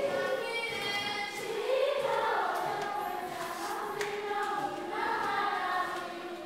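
A choir of schoolgirls singing a traditional Malawian greeting song together, the voices dying away near the end.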